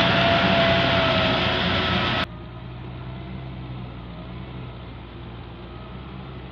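Farm tractor engine running under load as it drives a rear rotary tiller through wet rice-field stubble, with the churning of the tiller blades. About two seconds in the sound drops abruptly to a quieter, duller, steady engine sound.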